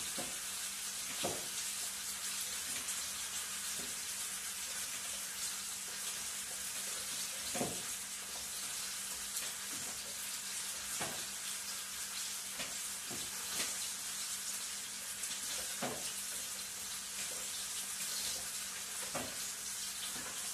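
A spoon stirring chopped carrots, celery and onions in a crock pot, knocking and scraping against the pot now and then, over a steady hiss.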